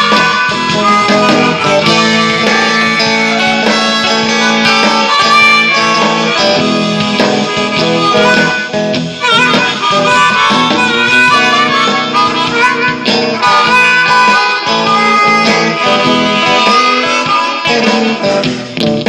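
Hohner Marine Band diatonic harmonica playing a blues solo with bent, wavering notes over a strummed guitar.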